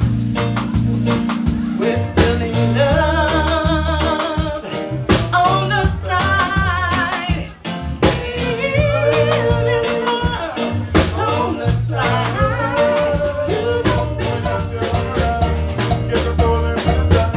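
Reggae band playing live: a woman singing lead over bass, drum kit and guitar, with a steady repeating bass line.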